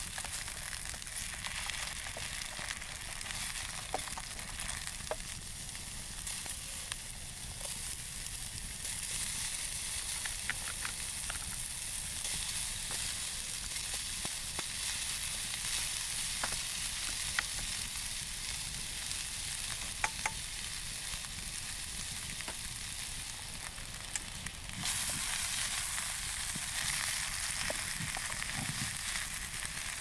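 Diced potato and bacon frying in a pan over a campfire: a steady sizzle with occasional sharp ticks, growing louder about 25 seconds in.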